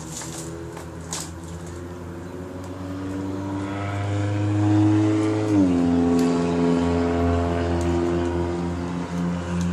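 An engine running: its pitch climbs and grows louder over a couple of seconds, then drops sharply about halfway through and holds steady.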